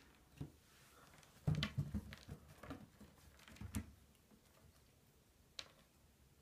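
A kitten's paws on a wooden floor as it pounces on and bats a small pellet: scattered light taps and thumps, a few of them close together about a second and a half in.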